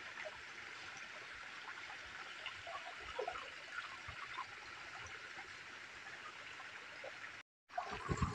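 Spring water running and trickling over rocks as a faint, steady rush. After a brief break about seven and a half seconds in, it comes louder and more uneven, as a small stream of water splashing down from a rock crevice.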